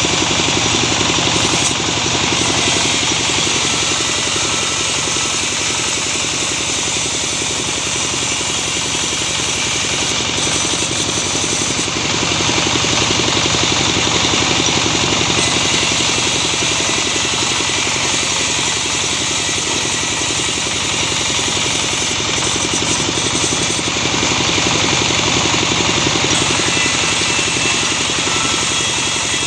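Engine of a sawmill machine running steadily, its level swelling slightly a few times.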